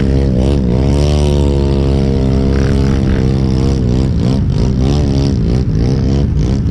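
ATV engines running: one is revved up and down repeatedly, its pitch rising and falling, over another engine idling steadily underneath.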